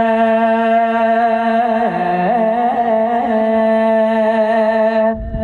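A man singing sholawat solo through stage loudspeakers, holding one long note that drops in pitch about two seconds in and then wavers in small melodic turns. The voice breaks off briefly near the end and comes straight back.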